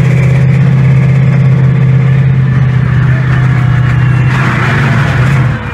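Monster truck engine running with a steady, loud low drone, heard from inside the open cab. A rush of hissing noise comes over it about four seconds in, and the engine note eases off right at the end.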